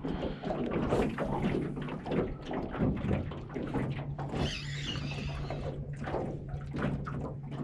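Irregular knocks and clatter of gear being handled in a small fishing boat, with water lapping against the hull. A low steady hum comes in about three seconds in.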